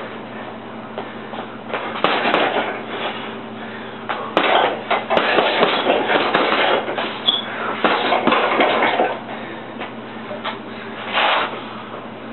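Boxing gloves punching a hanging heavy bag in several flurries of rapid thuds, with short pauses between them.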